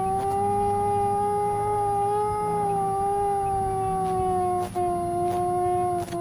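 Twin electric ducted fans of an RC A-10 model whining steadily at high power in flight. The pitch eases slightly lower as the throttle comes back. The sound cuts out briefly twice near the end.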